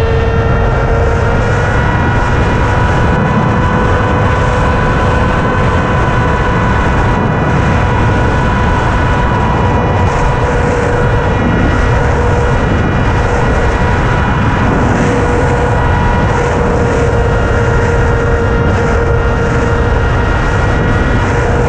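Electric motors and propellers of a small remote-controlled FPV aircraft, heard from its onboard camera: a steady whine whose pitch wavers slightly, over heavy wind rush on the microphone.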